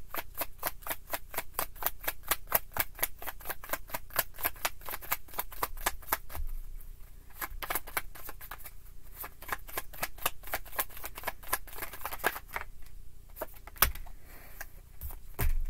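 A deck of tarot cards being shuffled by hand, the cards clicking against each other about five times a second for the first six seconds. After that the shuffling comes in looser, broken runs, with one sharper snap a little before the end.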